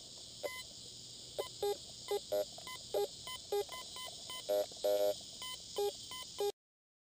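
Fisher F75 metal detector sounding a quick series of short target beeps at a few different pitches as its coil is swept over the ground, over a steady high hiss of crickets. Everything cuts off suddenly about six and a half seconds in.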